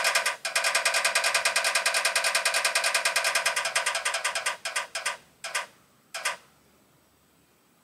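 Wheel-of-fortune app on a tablet spinning: rapid electronic ticks, about a dozen a second, as the pointer passes each segment. They slow and spread out as the wheel coasts to a stop, the last tick coming about six seconds in.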